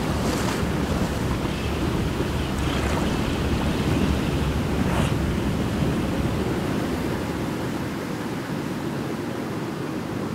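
Steady rushing of wind and sea surf over open water, with a few brief hissy swells and no engine tone; it eases slightly over the last few seconds.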